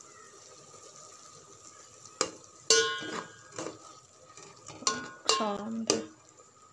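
Spoon stirring noodles in an aluminium pot, knocking and scraping against the pot's side. The knocks start about two seconds in, come at irregular intervals, and some leave a brief metallic ring.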